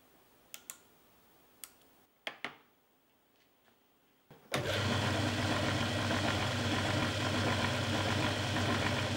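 A few sharp clicks and knocks of metal tools being handled, then about four and a half seconds in a small metal lathe's motor switches on and runs steadily, its chuck spinning.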